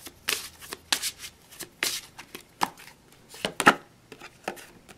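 Tarot cards being handled by hand, with a card drawn from the deck and laid on the spread: a run of irregular sharp card snaps and taps, the loudest about three and a half seconds in.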